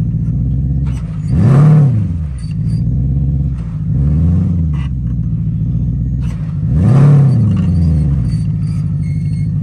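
Mercedes-Benz CL 500's V8 engine running steadily, swelling up and back down in pitch three times, about every two and a half seconds.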